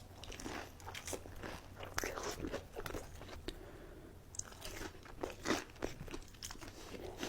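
Close-miked eating of fried fast food: irregular crisp crunches and chewing, bite after bite.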